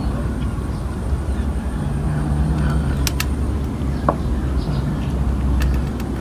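Low, steady engine-like hum running throughout, with a few sharp clicks and one short chirp.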